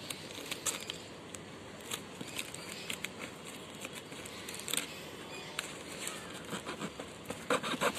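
A knife cutting and scraping at packing tape on a cardboard box: irregular scratches, clicks and crackles of tape and cardboard, busier near the end as the box resists opening.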